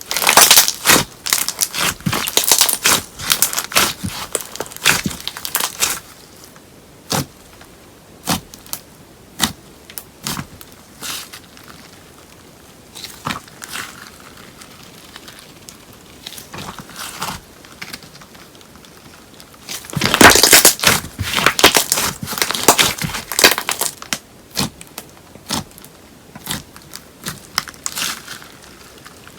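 Slime being kneaded together with paper clay by hand, crackling and clicking. There are dense stretches of crackling in the first six seconds and again about twenty seconds in, with sparse single clicks between them.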